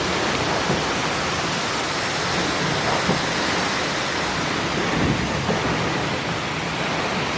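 Heavy thunderstorm downpour: a steady, even rushing hiss of rain with a few brief ticks now and then.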